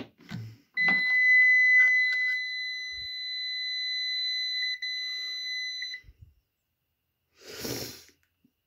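Reenwee RCM9 clamp meter's buzzer giving a short beep, then a steady high beep lasting about five seconds, while a thermocouple temperature probe is plugged into its jacks. Handling clicks at the start and a brief rustle near the end.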